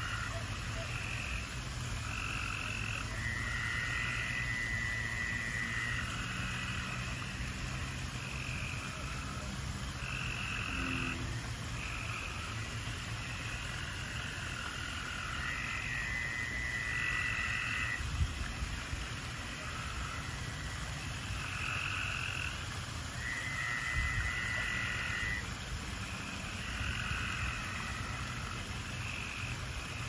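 A chorus of frogs calling, with many short overlapping calls. A longer trill of two to three seconds comes three times. A steady low rumble runs underneath, and two brief low thumps come in the second half.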